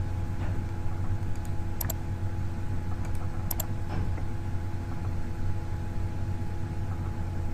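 Steady low electrical hum from the recording chain, with a faint steady higher tone. A few short sharp clicks come about two and three and a half seconds in.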